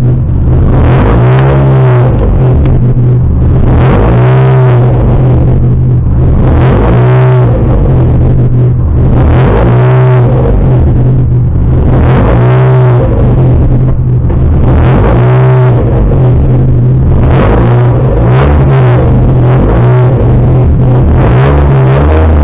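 Sprint race car engine running loud over a steady low drone, its pitch rising and falling in regular swells about every two and a half to three seconds, then changing more quickly and irregularly in the last few seconds.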